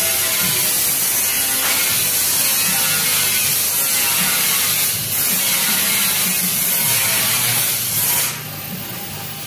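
Metal lathe running, its cutting tool taking a cut on a refrigeration compressor access valve to true its seating face: a steady harsh hiss over the motor's hum. It drops quieter about eight seconds in.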